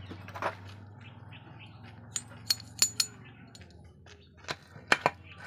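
A few sharp, ringing metallic clinks as a steel gear shaft is handled and fitted into the open aluminium crankcase of a Bajaj auto rickshaw two-stroke engine. Under them is a low steady hum that drops away about halfway.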